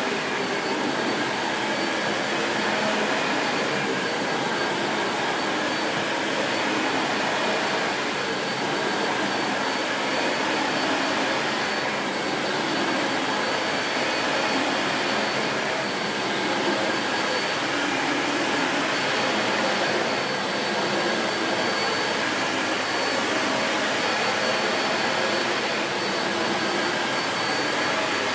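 Dyson Light Ball bagless upright vacuum cleaner running over carpet with its brush bar engaged: a steady rush of air with a thin high whine, swelling slightly every couple of seconds.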